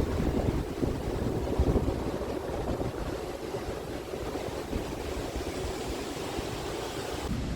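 A wide waterfall in full flow: a loud, steady rush of falling water.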